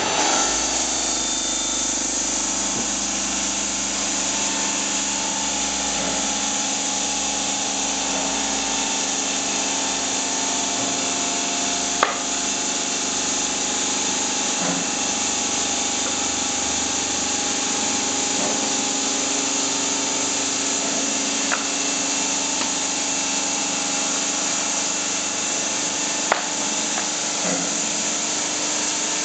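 Large water-cooled diamond circular saw blade of a stone-cutting machine running steadily through stone, a continuous grinding hiss over a steady hum. Three sharp clicks stand out: one near the middle and two later.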